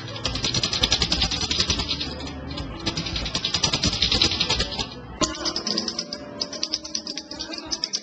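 Dense, rapid clattering of many small mounted wooden discs as hands sweep over them. The clattering pauses briefly about two seconds in and thins to scattered clicks after about five seconds, when a few sustained musical tones come in.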